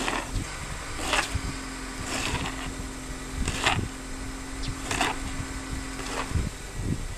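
Snow shovel scraping snow off a driveway in about six short strokes roughly a second apart, with a faint steady low hum underneath.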